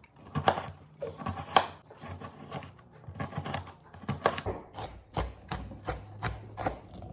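Kitchen knife chopping an onion on a cutting board: a run of sharp knocks, uneven at first, then settling into a steady beat of about three a second from about five seconds in.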